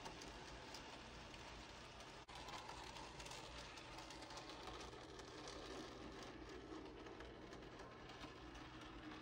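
Faint, steady running of N scale model trains on the track, with a brief dropout about two seconds in.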